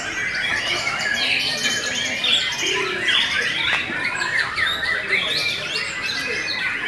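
Many caged white-rumped shamas (murai batu) singing at once: a dense chorus of overlapping whistles, trills and chirps.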